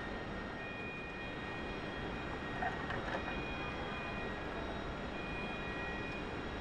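Steady assembly-line machinery hum in a car factory hall. A faint high tone sounds for under a second and repeats about every two seconds, with a few light clicks near the middle.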